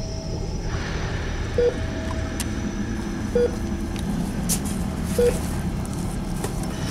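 A short, low electronic beep repeating evenly about every two seconds over a steady low hum.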